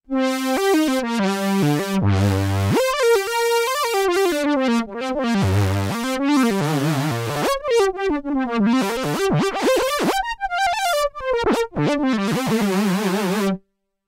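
Dave Smith Mopho x4 analog synthesizer playing its "Slither Lead" preset: a line of single notes, some sliding and wavering in pitch, that cuts off near the end.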